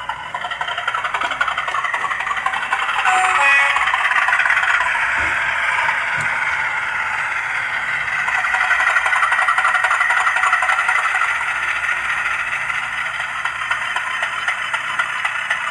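Class 50 diesel engine sound from a Hornby model locomotive's TTS sound decoder, played through its small onboard speaker, thin and without bass, slowly falling and rising in pitch. Near the end a regular clicking comes in, from the model's wheels running over the track.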